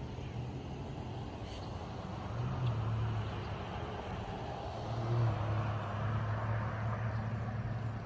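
Outdoor background rumble: a steady low hum with a wider rushing rumble that swells about two and a half seconds in and again from about five seconds in.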